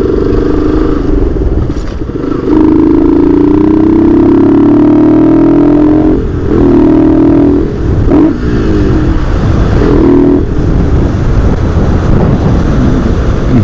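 Motorcycle engine pulling under acceleration. Its note climbs steadily for a few seconds, then drops and climbs again in shorter steps several times as it shifts up through the gears.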